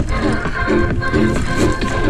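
Background music with a regular pulsing rhythm.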